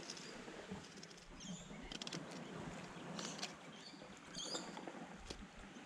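Knife cutting a fillet off a grunter on a rock: an irregular, scratchy crackle of the blade working through skin and flesh, with scattered small clicks.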